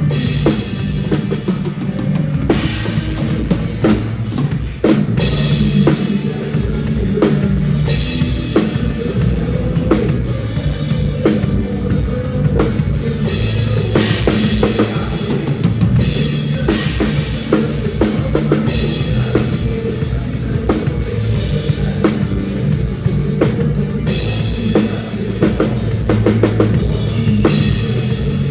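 Drum kit played in a steady beat, kick drum, snare and cymbals, along with a backing song that carries a bass line.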